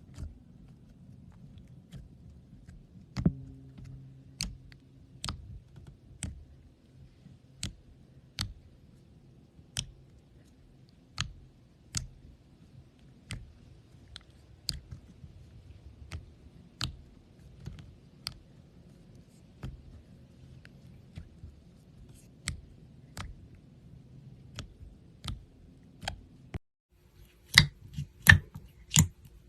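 Slime being worked by hand, giving sharp, crisp clicks about one a second over a faint low hum. Near the end the clicks come faster and louder.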